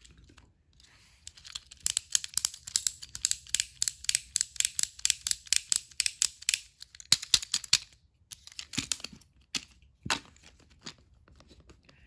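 Rapid, irregular clicking and rattling of a small plastic battery-powered toy train being handled for a test. The clicks come thick and fast for several seconds, then thin out to scattered clicks with short gaps.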